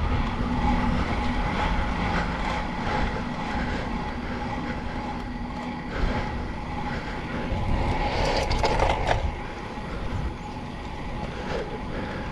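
Riding noise from a road bike picked up by its camera: steady wind rush over the microphone and tyre rumble on asphalt, swelling for a moment around eight to nine seconds in.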